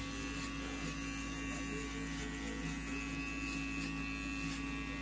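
Electric hair clippers running with a steady hum while trimming around the ear.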